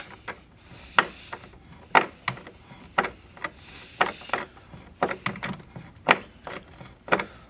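A Phillips screw being turned by hand with a screwdriver, sharp clicks about once a second with light scraping between them, as it is driven through the cart plate into the ventilator's base against a rubber gasket.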